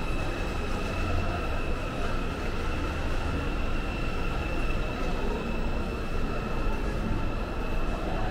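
Indoor shopping-mall ambience: a steady low rumble and hiss with a few faint, steady high-pitched tones.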